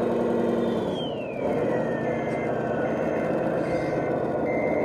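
Radio-controlled model truck's sound unit: a simulated diesel engine runs steadily, then winds down with a falling tone about a second in. From about two seconds in, a reversing beep repeats evenly about every three-quarters of a second over a steady whir.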